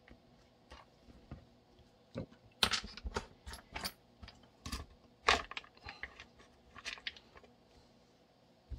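Irregular clicks and taps of hard plastic and metal being handled: a Streamlight TLR-1 HL weapon light, its broken latch shimmed, being fitted to a pistol's rail.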